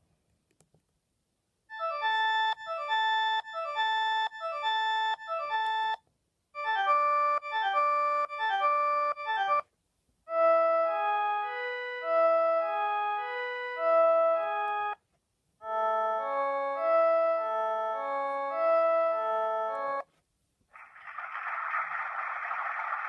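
Sony Ericsson W395 mobile phone playing a run of its built-in ringtones through its small speaker: four short electronic melodies, each a few seconds long with brief pauses between, the first two quick repeating loops and the next two longer tunes. Near the end a hissing, noise-like tone begins.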